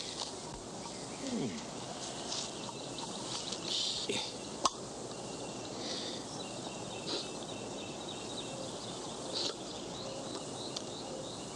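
Steady outdoor background hiss with scattered faint chirps, a short falling cry about a second in, and a single sharp click about four and a half seconds in.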